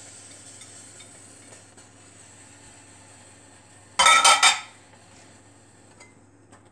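Quiet kitchen handling with a few light taps as chopped bell peppers are tipped from a container into a skillet of sauce. About four seconds in comes a brief, loud, ringing clatter of kitchenware that lasts about half a second.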